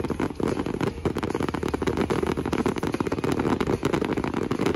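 Fireworks crackling in a rapid, dense stream of pops over a steady low rumble.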